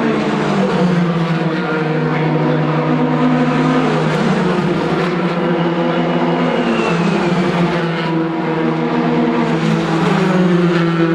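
Several Formula 3 race cars' two-litre four-cylinder engines running together at a mostly steady pitch, with a falling whine about halfway through.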